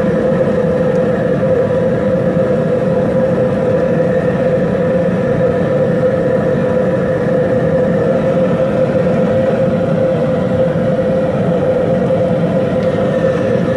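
High-pressure propane burner running steadily under a large boil pot: a loud, constant rushing noise with a steady hum in it.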